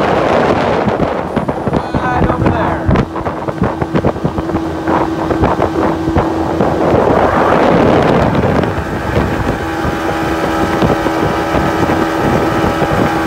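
Mercury tiller outboard motor running steadily with the boat underway, a constant engine hum under wind buffeting the microphone.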